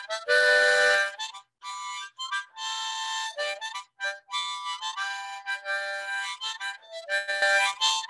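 Harmonica played as a quick tune of short notes and held chords, with brief breaks between phrases.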